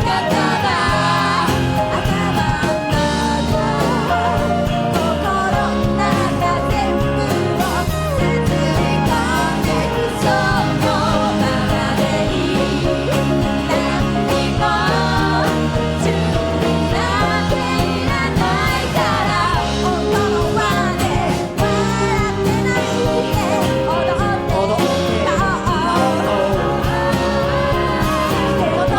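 A live band playing a pop song: drums, bass, guitars, piano and violin together, with a bending lead melody line over them.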